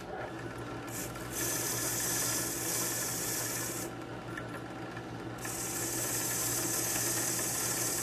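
A key held against a wire wheel brush spinning in a drill press: two stretches of harsh, steady scratching, each a few seconds long, with a fainter scraping between them. The wire bristles are brushing the cutting burrs off a freshly cut key.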